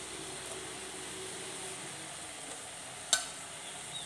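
Chopped onion, tomato and garlic frying in oil in a pressure-cooker pan, a steady sizzle, with one sharp knock about three seconds in.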